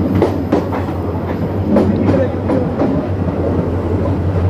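Diesel-hauled passenger train running on the rails: a steady low rumble with irregular clicks and clatter of the wheels over rail joints.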